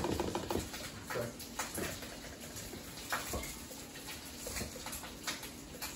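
Light, irregular knocks and clicks of kitchen prep: a knife cutting fresh cilantro on a wooden cutting board, along with a spoon working in a mixing bowl.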